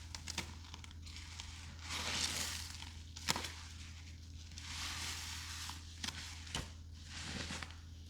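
Soap-soaked sponges being squeezed in a thick mix of cleaning products and bath soap. They squelch wetly in three swells, with small clicks and crackles in between.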